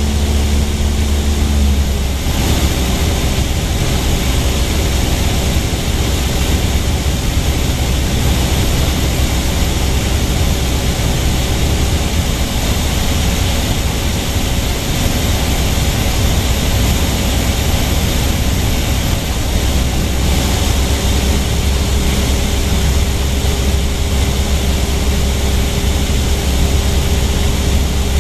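Loud, steady drone of a light propeller aircraft's engine and propeller, heard inside the cockpit in flight. The engine note shifts slightly about two seconds in.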